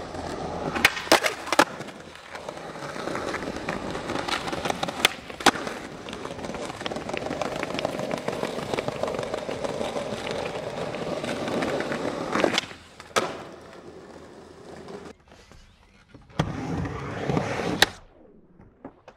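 Skateboard wheels rolling over stone paving, broken by sharp clacks of the board's tail popping and landing, several times. Near the end, a skateboard rides a mini ramp and gives one loud clack.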